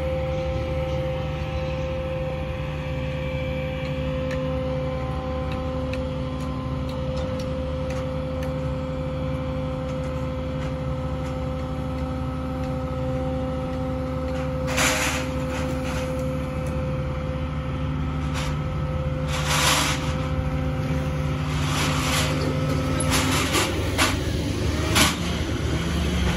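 Engine of a barge-mounted crane running steadily as the crane lifts a pier lift frame, with several short bursts of hiss in the second half.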